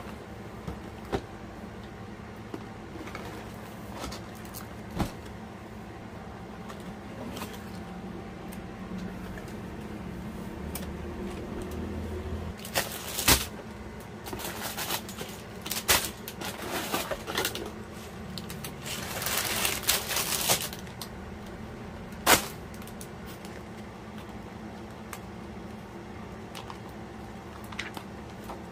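Scattered clicks and knocks over a steady low hum, with a busier stretch of rapid clicking and a few seconds of rustling about two thirds of the way through.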